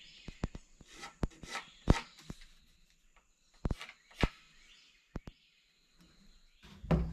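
Handling noise: a scattered series of light knocks and clicks as a cordless power tool is set against and moved over a piece of scrap wood, with the sharpest knock just under two seconds in.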